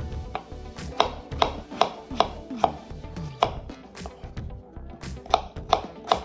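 Small kitchen knife cutting fresh strawberries on a cutting board: a quick, irregular series of sharp taps as the blade strikes the board, about two a second.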